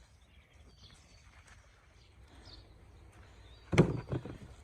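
Quiet outdoor background with faint bird chirps, then a short cluster of knocks and thuds about four seconds in, the loudest thing here.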